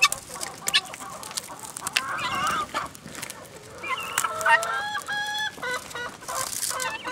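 Helmeted guineafowl calling, a series of short, harsh, steady-pitched calls that bunch up about two thirds of the way through, over scattered sharp clicks and crackles.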